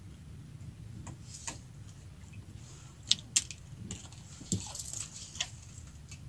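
A fishing hand line and hook being handled in a small boat: a few sharp clicks and light taps, two loudest about three seconds in and a cluster near five seconds, over a low steady rumble.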